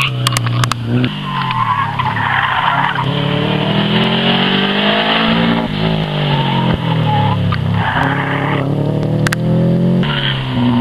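Rally car, a Subaru Impreza with its flat-four engine, driven hard past the camera: the revs climb and drop again and again through gear changes and braking for the chicanes, with tyres squealing in places.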